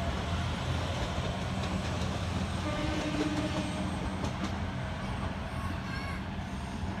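Moka Railway single-car diesel railcar pulling away from the station, its engine and running gear making a steady low hum that grows slightly fainter as it moves off down the line.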